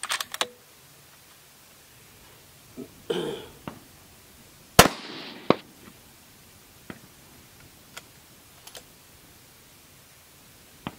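A single rifle shot about five seconds in, with a long echoing tail, followed about 0.7 s later by a second, shorter crack, the delay that fits the bullet striking a steel target 200 yards downrange. A few faint clicks come at the start and between.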